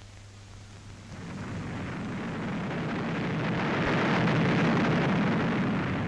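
A long rumbling crash of rubble from a bomb-damaged building coming down. It builds over about three seconds and fades near the end.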